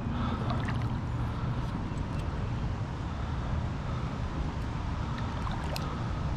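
Steady low rumble of wind buffeting the microphone, with a few faint clicks scattered through it.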